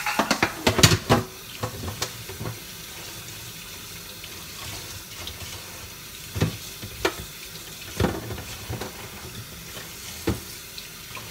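A kitchen tap runs steadily as raw shrimp are rinsed in the sink. A quick clatter of knocks in the first second or so, then a few single knocks of dishes further on.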